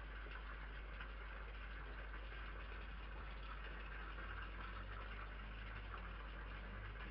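Steady hiss over a constant low hum: the self-noise of a security camera's microphone, with no distinct sounds standing out.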